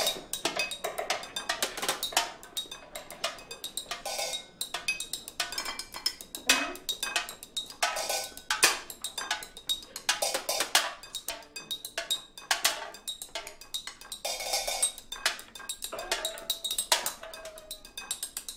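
Improvised percussion on found objects, sticks striking plates, bottles and glasses: a quick, irregular run of clinks and knocks, many ringing briefly.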